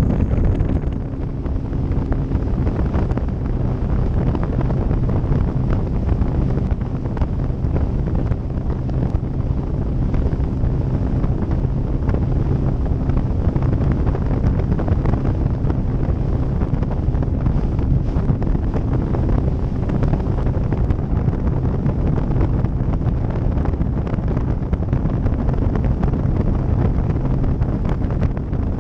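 Wind buffeting the microphone over the steady running of a Mercury 150 ProXS outboard motor pushing a Ranger Z118c bass boat along at cruising speed.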